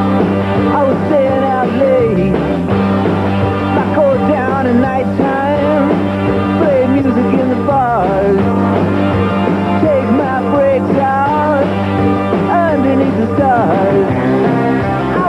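Rock music: a lead melody bending and sliding in pitch over a steady low accompaniment.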